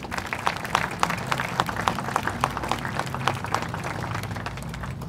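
Audience applauding: a crowd's scattered hand claps, thinning out near the end.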